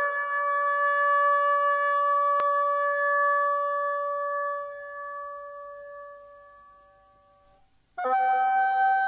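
Background music: a chord of long, steady held notes that fades out over a few seconds, then a new chord enters near the end. A faint click about two seconds in.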